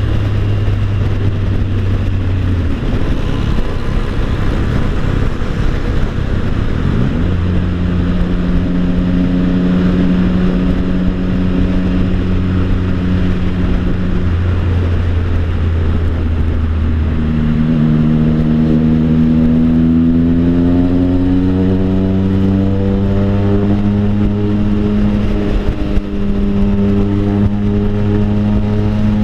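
Triumph Tiger Sport 660's three-cylinder engine blaring through an Orion Toni aftermarket exhaust while riding: very loud and noisy. The note holds steady, shifts in steps, climbs under acceleration for several seconds, then settles at a steady cruise.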